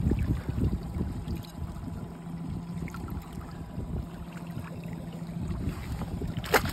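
Water sloshing and splashing against the side of a boat as a caught trout is pushed back and forth in the water to revive it, with wind rumbling on the microphone and a low steady hum. A sharp knock comes near the end.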